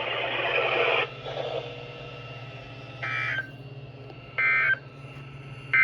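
NOAA Weather Radio SAME end-of-message data code: three short, identical warbling digital bursts about a second apart, marking the end of the alarm test message, over radio hiss.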